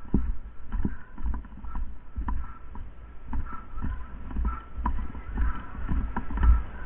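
Footsteps walking at a steady pace, about two a second, heard as dull thumps with light clicks between them.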